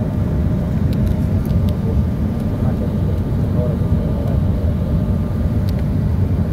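Airliner cabin noise during the descent to landing: a steady, loud low rumble of the engines and airflow, heard from a window seat beside the wing, with a few faint clicks.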